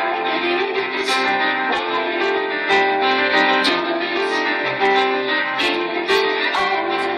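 Piano and bowed strings playing together live, sustained melodic notes over a steady accompaniment.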